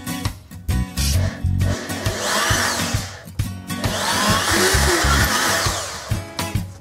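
Handheld electric drill boring into a wooden frame twice, each run lasting a second or two, its motor whine rising and falling. Background music plays throughout.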